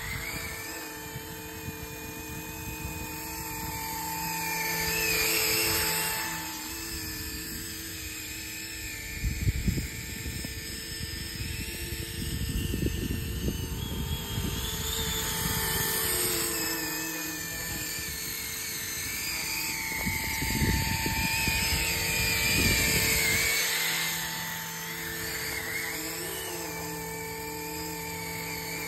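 Flish RC EC135 450-size electric RC helicopter flying low: a steady high whine from its motor, rotors and Fenestron-style tail fan, wavering up and down in pitch as it manoeuvres, and swelling louder as it comes near.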